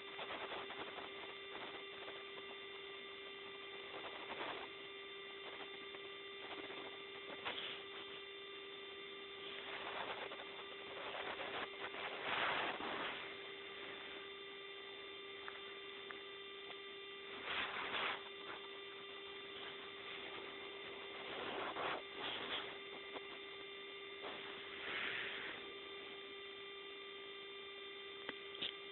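Domestic cat snoring in its sleep: a short rush of breath noise every few seconds, uneven in spacing, over a steady electrical hum.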